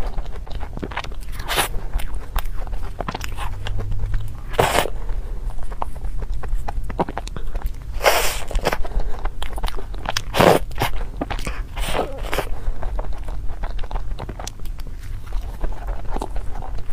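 Close-miked eating of cream puffs: irregular biting, chewing and lip-smacking sounds, with a few louder bites in the middle stretch, over a steady low hum.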